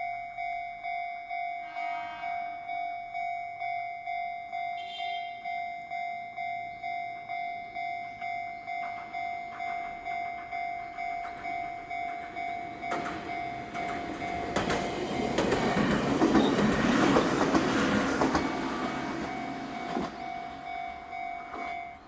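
Japanese level-crossing alarm sounding the Chichibu-type warning tone, an electronic bell pulsing at about two strikes a second, while a Jomo Electric Railway train runs through the crossing, its rumble and wheel clatter building about halfway through, loudest around two-thirds of the way in, then fading. The alarm cuts off suddenly at the very end as the crossing clears.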